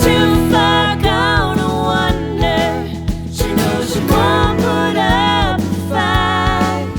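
Background music: a song with a singing voice over guitar and bass with a steady beat.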